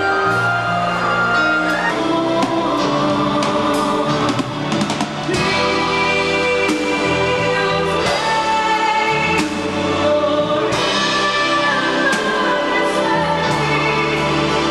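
Live band music with a woman singing the lead, sustained sung notes over the band.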